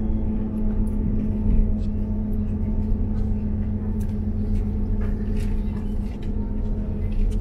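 Inside the passenger saloon of a Class 158 diesel multiple unit under way: a steady low drone with a constant hum from the running train, wheels rumbling on the track, and a few faint clicks.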